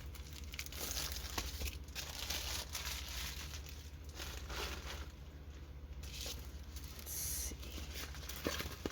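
Plastic packaging crinkling and tearing as it is handled and opened, with small irregular rustles and clicks.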